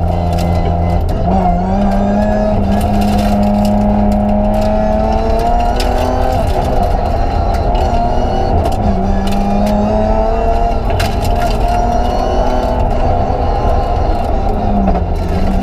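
BMW 325 Group A rally car's straight-six engine at stage pace, heard inside the cabin, its pitch climbing and dropping again and again as it revs through the gears and lifts for corners, with scattered sharp clicks over it.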